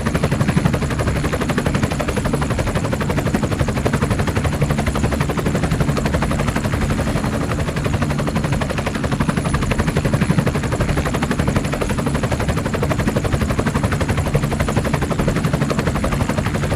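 Helicopter engine and rotor running steadily: a loud, fast, even chopping beat over a constant rumble.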